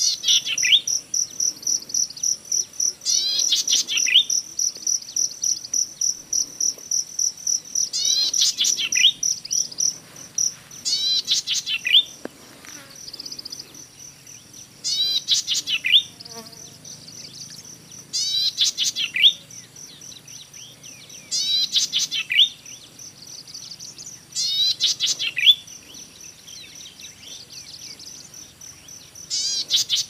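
Golden-headed cisticola singing short phrases, each a rapid run of high notes ending in a sharp rising note, repeated every three to four seconds. Under it runs a steady, evenly pulsing high insect trill, louder for the first ten seconds.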